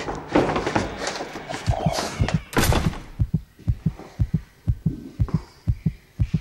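A dense, crackling burst of dramatic sound effects ends about three seconds in. Then a fast heartbeat sound effect starts: low thumps coming in pairs, over and over.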